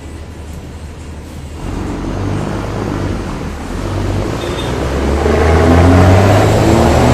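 A vehicle's engine accelerating hard: its rumble gets louder about a second and a half in and keeps building, the pitch rising, loudest near the end.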